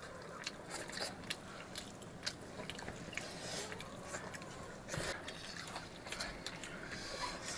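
People eating a rice meal: irregular small clicks and clinks of eating, with chewing.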